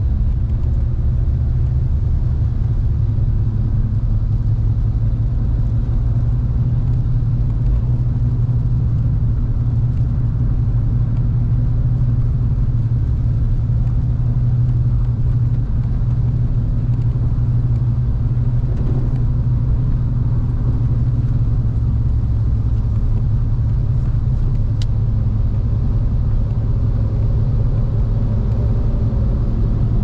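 Steady low rumble of a car driving on a wet road in the rain, heard from inside the cabin: engine and tyre noise with a faint hiss.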